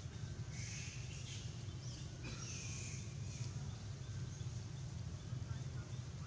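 Outdoor ambience: a steady low rumble with two short spells of high chirping calls, about a second in and again about two and a half seconds in.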